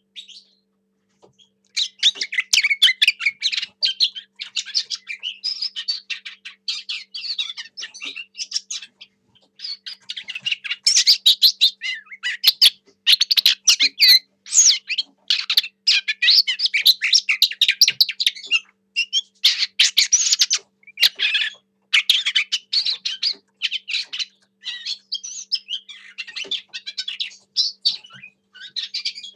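Lesser whitethroat singing a long run of quick, chattering warbling phrases with only brief pauses, starting about two seconds in.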